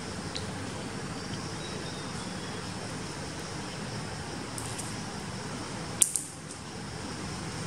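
Steady background hiss with a sharp tap on a hard concrete floor about six seconds in and a smaller tap right after, as a dangled stick toy strikes the floor during a kitten's play.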